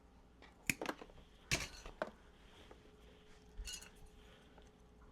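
A few sharp clicks and taps of small tools and metal or plastic parts being handled while wiring an amplifier, in two clusters in the first two seconds and one more near the middle.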